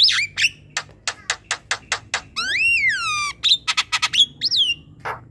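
Javan myna singing in full song: a rapid string of sharp clicking notes, a long whistle that rises and then falls about halfway through, then more clicks and a short falling whistle near the end.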